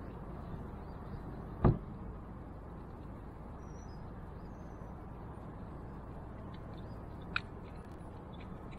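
A single hard knock on the bass boat a little under two seconds in, over a steady outdoor background hiss, with a small click near the end and a couple of faint high chirps in between.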